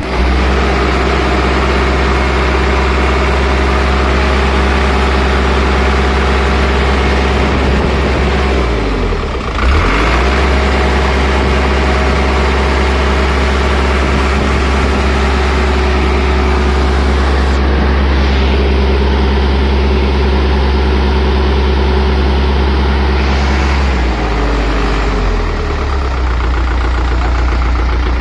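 Truck engine idling steadily up close. Its note sags and comes back up about nine to ten seconds in, and drops slightly a little before the end.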